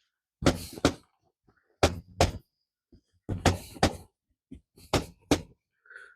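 Dusty UTV air filter being knocked against a hard surface to shake the dust out of it: a run of sharp knocks, mostly in quick pairs.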